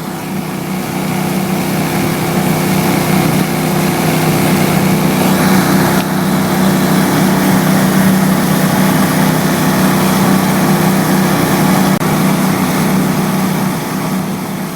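A small engine running steadily at a constant pitch, growing louder over the first few seconds and easing off near the end.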